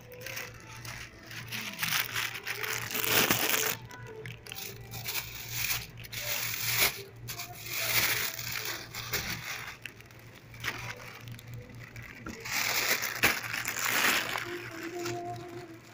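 Thin plastic bag crinkling and rustling close to the microphone in three bouts, over a steady low hum.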